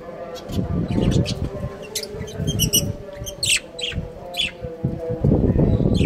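Budgies chirping: a string of short, sharp chirps, several in quick succession, over a low rumble.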